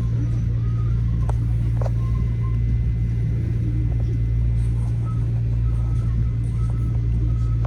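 Metro-North M7A electric multiple-unit train running, heard from inside the car: a steady, loud low rumble and hum with a faint high steady tone over it.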